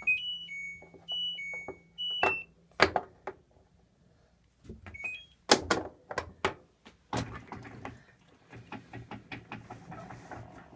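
A 2012 LG top-load washer's control panel plays its short start-up tune of high alternating beeps, followed by several sharp clicks and knocks. A short rising beep comes about five seconds in. From about seven seconds in, a knock is followed by a low hum from the machine.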